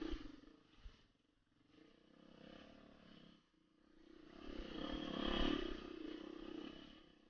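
Beta 480RR dirt bike's four-stroke single-cylinder engine revving in short throttle bursts on a steep loose hill climb, easing off about a second in and again about three and a half seconds in, then a longer, louder pull from about four seconds in while the rear wheel throws up dirt.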